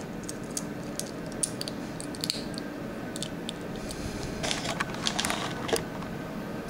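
Scattered light clicks and clinks of a steel dive watch and its metal bracelet being handled, with a quicker run of clicks about four and a half seconds in.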